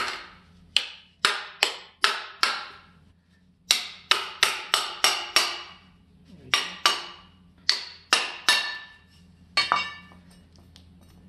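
Small hammer tapping on a Subaru Crosstrek front MacPherson strut's top mount to knock it loose from the piston rod, the spring held in a strut compressor. The taps come in three quick runs of sharp, ringing metal knocks, about five or six each, with small clicks near the end.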